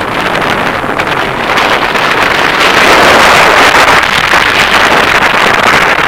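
Strong wind buffeting the microphone, swelling into a louder gust about two seconds in.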